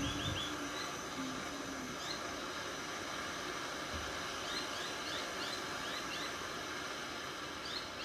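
Gas blowtorch flame burning with a steady hiss while it heats a seized tailgate bolt. A small bird chirps in quick runs of short high notes, mostly around the middle and again near the end.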